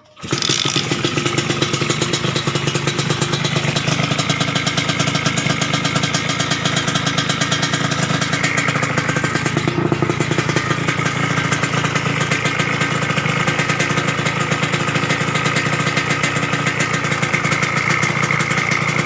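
Suzuki RGR 150 two-stroke single-cylinder motorcycle engine running steadily with a rapid, even firing rattle. It comes in abruptly at the start.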